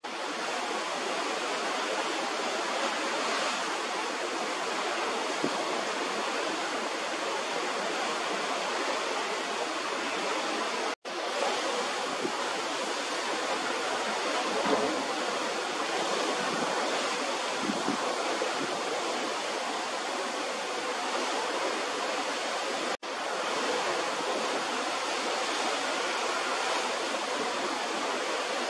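Steady rushing noise of the sea washing past the side of a cruise ship under way, mixed with wind. The sound drops out for an instant twice, about 11 and 23 seconds in.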